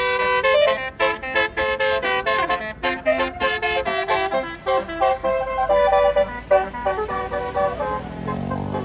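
Bus telolet horn, a Basuri multi-note musical air horn, playing a quick tune of short and held notes. Near the end a lower, slightly rising tone comes in under it.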